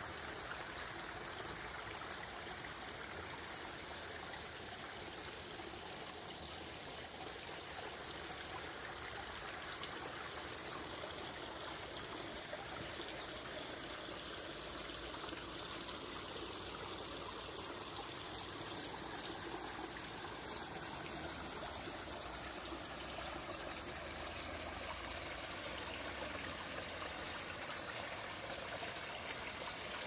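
Small shallow creek trickling steadily over stones, with a few brief faint high chirps.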